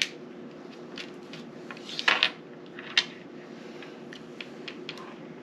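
A few sharp clicks and taps of small game pieces being handled and set down on a table, the loudest a short cluster about two seconds in and a single click a second later, over a steady low hum.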